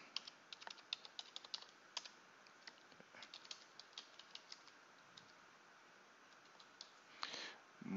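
Faint computer keyboard typing: a quick run of key clicks that thins out after about five seconds.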